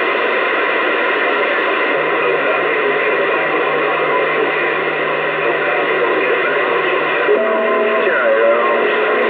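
CB radio receiving on AM with a strong signal on the meter, its speaker giving a loud, steady hiss of static and garbled noise. A low steady hum comes in about two seconds in and drops out near seven seconds. After that, faint whistling tones and a brief falling slide come through.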